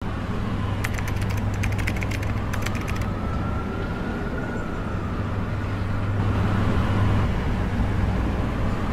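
A steady low hum with a faint tone that slowly rises and falls. About a second in comes a run of quick typing clicks, lasting about two seconds.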